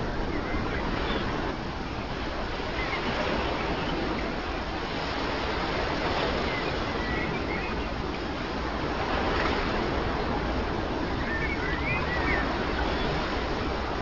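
Ocean waves washing and breaking as a steady surf with slow swells. A few faint high chirps come through near the middle and toward the end.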